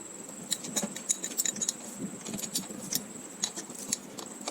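Irregular light metallic clinks and ticks, small metal pieces knocking together as they are handled.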